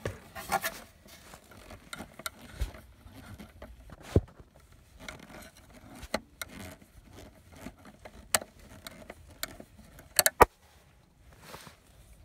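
Screwdriver turning out screws from the cassette player's rusty steel mounting bracket: scraping and handling noise with scattered sharp metallic clicks and taps. The loudest is a quick cluster of clicks about ten seconds in.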